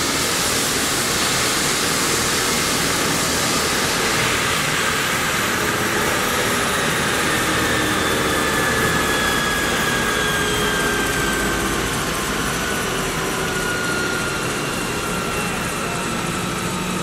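Medevac helicopter on the ground with its turbine engines spooling down: a loud, steady rush of rotor and engine noise with high whines that slowly fall in pitch, typical of a turbine helicopter shutting down after landing.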